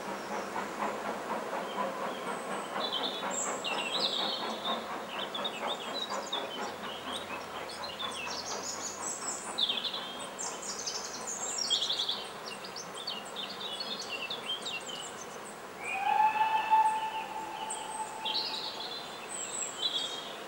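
A Manor-class steam locomotive and its train clattering away inside a tunnel, fading over the first several seconds, while small birds sing throughout. About sixteen seconds in, a steam whistle sounds one steady note for about three seconds, the loudest sound.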